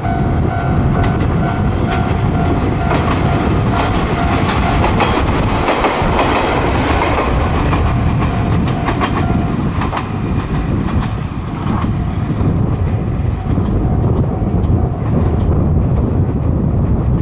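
Ichibata Electric Railway 3000 series electric train (ex-Nankai 21000 series) running past, its wheels clicking over the rail joints most densely in the middle, with a steady high whine in the first half.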